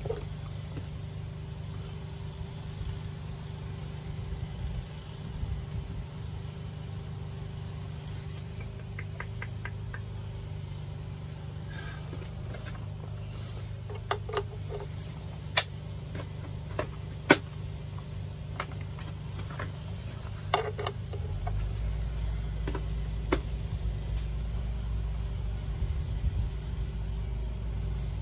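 Steel spanner and bolt clinking against the van's sheet-metal door pillar as the bolt that set a threaded insert for an earth point is worked loose, a few scattered sharp clinks through the middle. Under them a steady low rumble runs throughout and gets heavier about three quarters of the way through.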